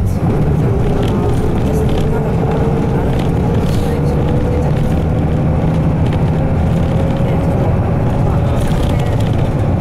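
Interior running sound of a Nissan Diesel Space Runner RM city bus under way: its 6.9-litre FE6F diesel and five-speed manual drivetrain drone steadily, with a whine that slowly rises in pitch over several seconds.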